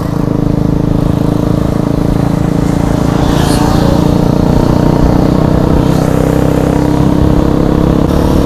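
A motorcycle engine running at steady revs while riding, a steady drone that picks up slightly at the start.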